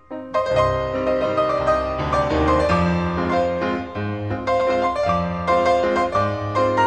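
Background piano music: chords and a melody of struck notes, starting again after a brief drop right at the beginning.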